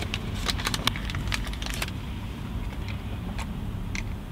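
Crisp clicks and crinkles from handling a fast-food wrapper and a paper drink cup, over a low steady rumble inside a car. There is a quick run of clicks in the first two seconds, then a few single clicks.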